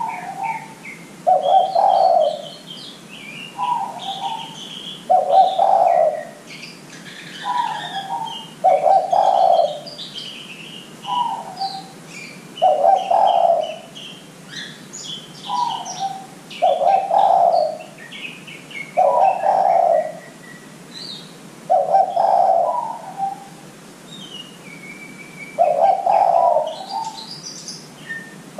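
Spotted dove (derkuku) cooing, repeating its phrase about every four seconds: a short higher coo followed by a longer, louder low coo. Small birds chirp faintly and high-pitched in the background.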